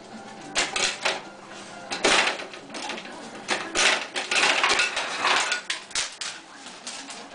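A dog pawing at a refrigerator's door ice dispenser: claws scraping and tapping on the dispenser and ice cubes clattering out, in irregular bursts.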